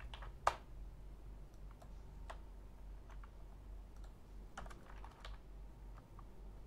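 Computer keyboard typing in sparse, separate keystrokes, with one sharper click about half a second in and a quick run of keys near the five-second mark.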